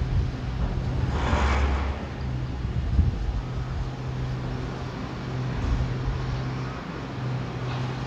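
A diesel engine of demolition machinery running steadily with a low hum and rumble, and a brief hiss about a second in.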